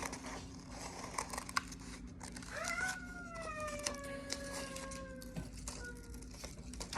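Scissors snipping through construction paper as circles are cut out, a run of small sharp clicks and snips. About two and a half seconds in, a single long call starts and slowly falls in pitch for about three seconds before fading.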